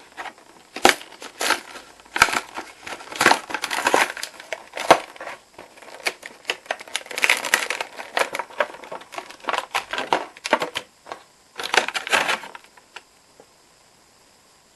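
Toy packaging being handled and torn open by hand: irregular crackling and crinkling with sharp clicks, stopping a little before the end.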